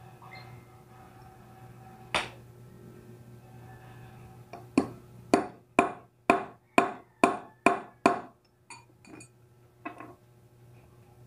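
Hammer blows on a metal pipe held against a DHQ bicycle hub as a drift, driving a bearing. One strike, then a run of about eight sharp, ringing metal strikes at about two a second, and a few lighter taps near the end.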